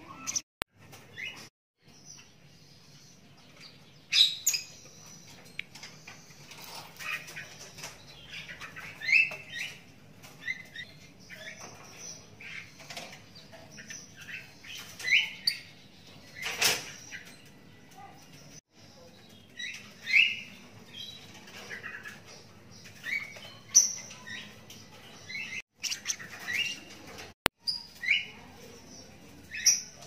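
A lovebird chick about 32 days old giving short, high chirps in loose bursts, one or two a second. A sharp click about halfway through is the loudest sound.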